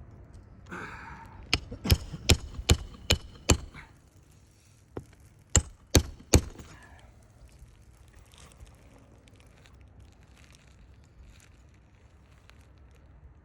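Hammer driving roofing nails into a fiberglass asphalt shingle. There are six quick strikes about 0.4 s apart, then a short pause and four more strikes.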